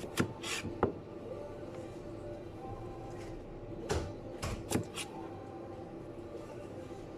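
Scattered knocks and clicks of kitchen prep work, utensils and dishes set down on a counter or board: a few near the start and another cluster around four to five seconds in, over faint background music.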